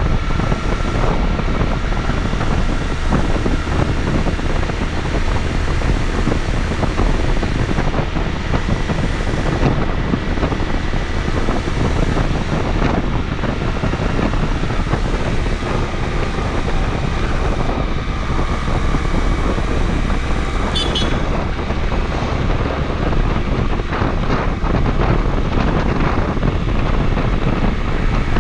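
Honda CD125T parallel-twin motorcycle running on the road, with wind buffeting the microphone; the sound is loud and steady.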